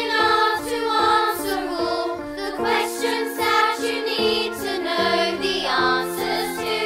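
Young performers singing together in chorus over a musical backing track, holding long notes while the bass line steps down toward the end.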